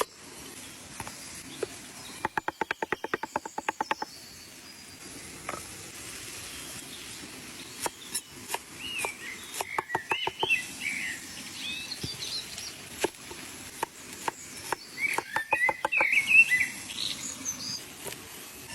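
Wild birds singing: chirping calls and three rapid rattling trills of about ten notes a second.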